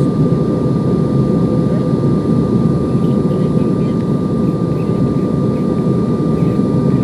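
Passenger aircraft in flight: a steady, even rush of engine and airflow noise, mostly low, with a constant thin whine on top, typical of a cabin during descent.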